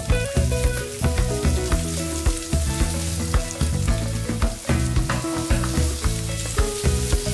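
Ground chicken and avocado patties sizzling in olive oil on a grill pan as they are turned with a spatula, with short sharp clicks scattered through. Background music plays underneath.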